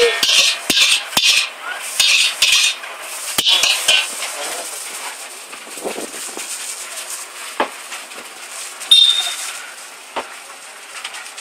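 Metal spatula clanking and scraping against a steel wok as noodles are tossed and stir-fried, with the hiss of frying. The strikes come thick in the first few seconds, then thin out to a few knocks over a steady sizzle.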